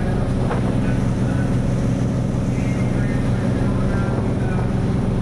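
Engines of the motor vessel KM Barcelona IIIA running steadily under way at speed, up to about 18 knots: an even, low engine drone.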